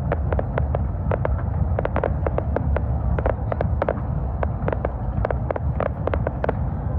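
Aerial fireworks crackling: a fast, irregular run of sharp pops and cracks, several a second, as crackle stars burst overhead, over a steady low rumble.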